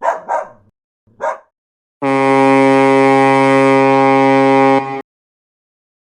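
A loud, steady buzzer sound effect held for about three seconds, then cut off suddenly, after a few short sounds in the first second and a half.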